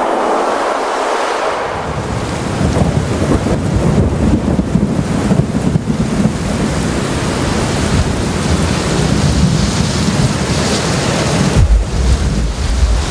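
Heavy rain pouring with deep rolling thunder that builds about two seconds in and swells again near the end.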